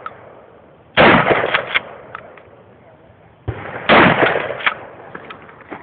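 Shotgun firing twice, about three seconds apart, each shot loud with a trailing echo. A lighter sharp knock comes about half a second before the second shot.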